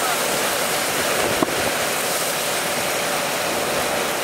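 Hurricane wind and heavy rain, a steady rush of noise, with a single sharp knock about a second and a half in.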